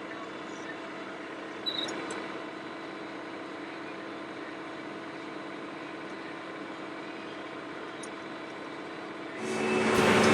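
Combine harvester running steadily while harvesting corn: an even mechanical drone with several held tones and a single click a little under two seconds in. Near the end a much louder, fuller sound swells in.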